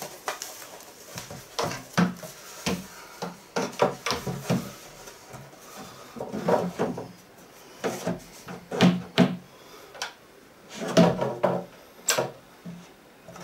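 Wooden cabinet panels knocking and clunking as the cabinet is handled and fitted together: a string of irregular short bumps, some in quick clusters.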